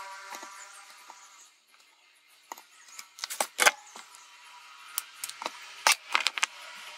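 Sharp clicks and light clatter of a freshly soldered RGB LED shield being pulled off an Arduino Uno's header sockets and set down, the loudest clicks about three and a half seconds in and again near six seconds.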